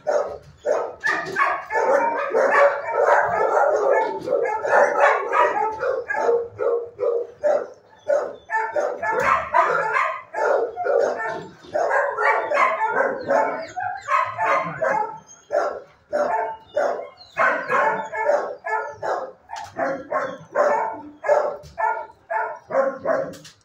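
Several shelter dogs barking over one another, many barks a second, with brief lulls.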